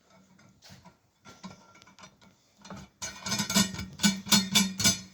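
Parts of a table-leg base being handled and fitted together: soft handling noise, then from about three seconds in a run of sharp mechanical clicks, about four a second.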